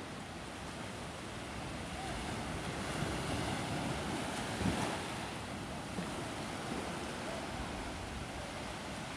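Sea surf washing onto a sandy beach, small waves breaking and running up the sand, with some wind on the microphone. The waves build in the middle, the loudest one breaking about four and a half seconds in.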